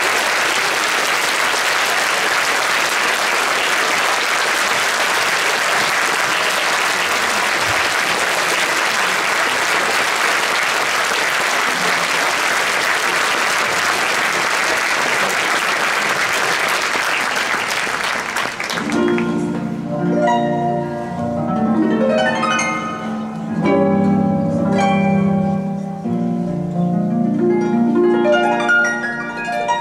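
Theatre audience applauding steadily. The clapping cuts off at about 19 s, and the orchestra begins a new number with plucked harp notes over sustained strings.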